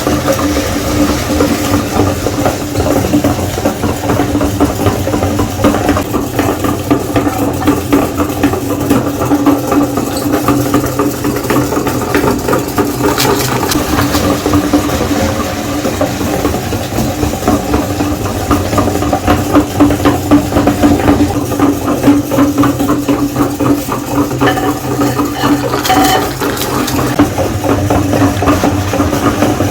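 Electric meat grinder's motor running steadily with a constant hum, grinding Oreo cookies with a continuous crackle.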